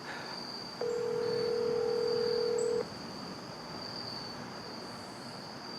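Telephone ringback tone from a cell phone's speaker as an outgoing call rings: one steady two-second tone about a second in, then a pause. A steady high insect trill runs underneath.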